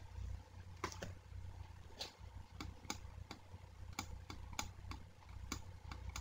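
Faint, irregular clicks, about a dozen, from the pointing device used to handwrite numbers on a computer screen, over a low steady hum.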